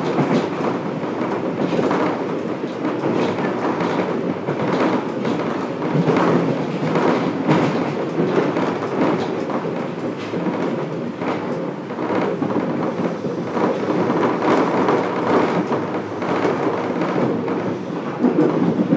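Fukuoka City Subway 1000N series train running, heard inside the passenger car: steady rumble of wheels and running gear, with repeated sharp clacks of the wheels over rail joints.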